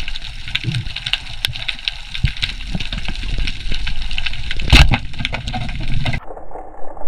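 Underwater reef ambience: a dense crackle of small clicks over a low rumble, with one sharp knock about five seconds in. The crackle cuts off suddenly about six seconds in, leaving a duller, muffled sound.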